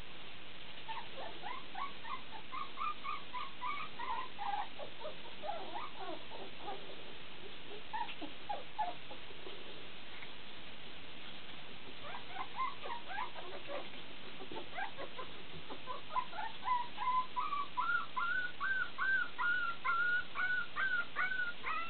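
Three-and-a-half-week-old West Highland White Terrier puppies whimpering and squeaking in short, high-pitched cries. The cries come in scattered clusters and turn into a steady run of about two a second near the end.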